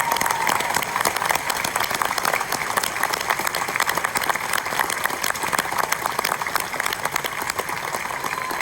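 Audience applauding, a dense continuous clatter of many hands clapping. A thin steady tone is heard at the start and again near the end.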